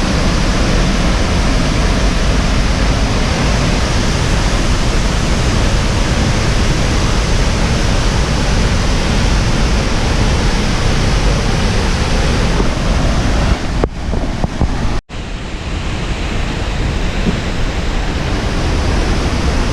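Loud, steady rushing roar of a large waterfall close by, with a short sudden dropout about three-quarters of the way through.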